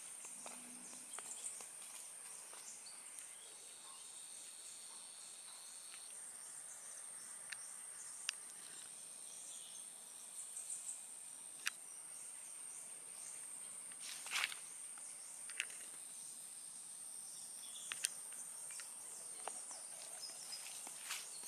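Insects droning with a steady high-pitched whine, joined for a couple of seconds by a lower insect buzz, with scattered sharp clicks and ticks, the loudest about two-thirds of the way through.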